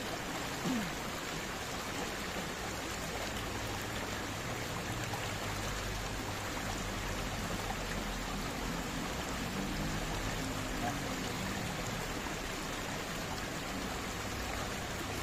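Shallow river running over rocks, a steady rush of water.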